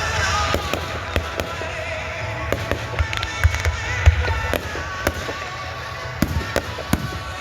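Fireworks going off: sharp pops and bangs at irregular intervals over a low rumble, the strongest boom about four seconds in.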